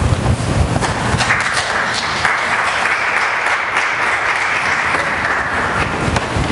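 Congregation applauding, the clapping starting about a second in and dying away near the end, over a low rumble at the start.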